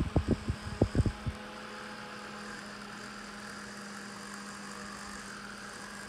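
Small USB desk fan running with a steady, quiet motor hum and whir. In the first second or so its airflow buffets the microphone in a few uneven gusts, then only the steady hum remains.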